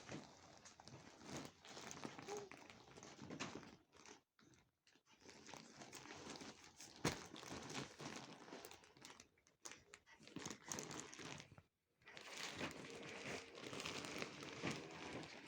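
Faint rustling and crinkling scuffs in irregular spells with short pauses between them, and one sharp click about halfway through.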